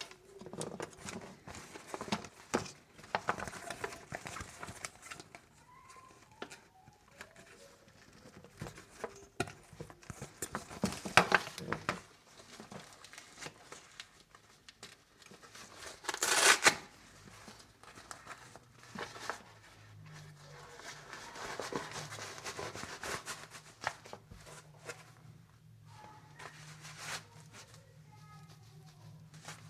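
Packaging of a pair of motorcycle gloves being handled and opened: plastic and paper crinkling and tearing in irregular bursts, the loudest about sixteen seconds in. A low steady hum comes in about two-thirds of the way through.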